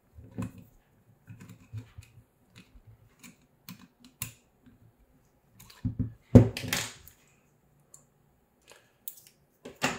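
Small hand-assembly noises: scattered clicks and taps of plastic 3D-printed parts and small metal tools being handled, with a louder knock and rattle about six and a half seconds in and a sharp click near the end.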